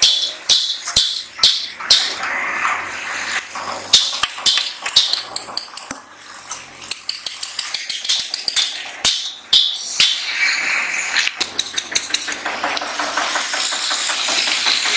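Construction-site work noise: irregular sharp knocks and clicks, with a denser, steadier machine noise building near the end.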